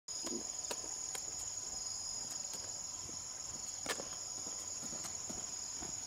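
Steady high-pitched chorus of insects buzzing without a break, with scattered light footstep-like taps and a sharper click about four seconds in.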